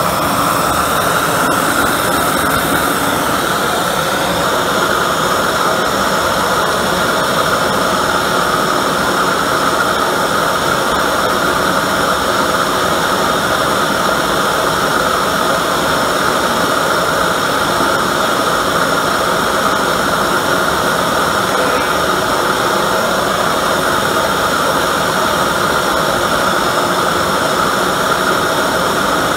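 Homemade oil-fired forge burner running flat out, a steady roar of air and flame blasting from its nozzle.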